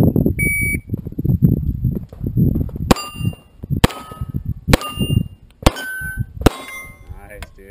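Shot timer beeps once, then a pistol fires five shots about a second apart, each followed by the ring of a struck steel plate target.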